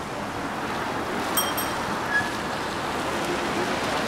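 Steady city street noise, an even wash of traffic sound. About a second and a half in, two quick high beeps.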